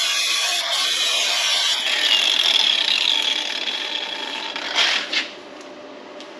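Angle grinder with a flap disc grinding weld beads flat on steel plate: a steady, gritty high-pitched grinding. Near the end come two short scrapes, then the grinding stops and the sound drops away.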